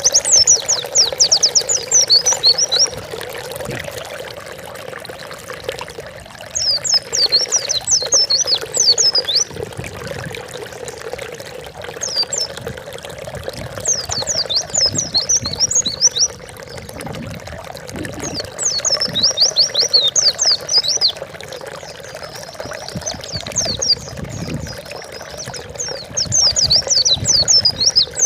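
White-eye (pleci) singing in fast, high twittering phrases of two to three seconds, repeated about every five seconds, over a steady sound of running water.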